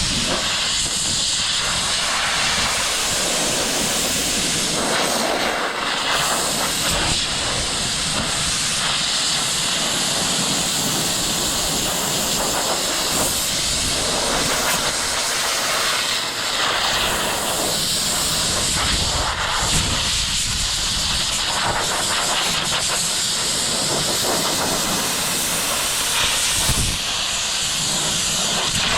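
Compressed-air hose blowing dust and chaff off a round baler: a loud, steady hiss of air that starts abruptly and keeps on without a break.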